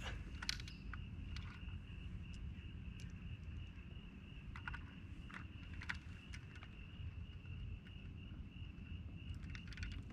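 Crickets chirring in a steady high trill, with a low rumble beneath and scattered short clicks and knocks from handling close by.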